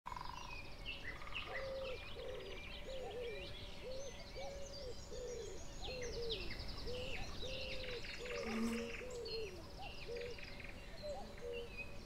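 A cuckoo calling its two-note "cuck-oo" over and over, each call a short higher note followed by a longer lower one, thinning out near the end, while songbirds sing high chirps and trills all around.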